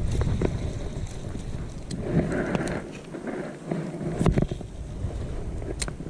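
Wind rumbling on the microphone, heaviest in the first few seconds, with a few light clicks and rustles scattered through it.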